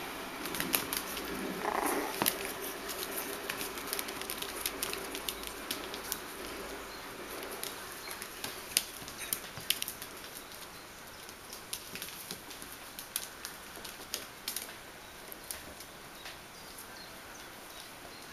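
Bichon Frisé puppies' claws clicking and pattering on a hard tile floor as they scamper and wrestle, in quick irregular ticks that are busiest in the first half and thin out later.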